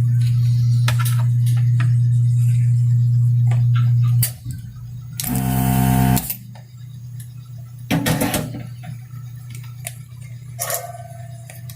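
Vacuum pump of a desoldering gun buzzing steadily while its trigger is held to suck molten solder off an IC pin. It stops about four seconds in, then runs again in one short burst of about a second, with small clicks of the tool against the circuit board.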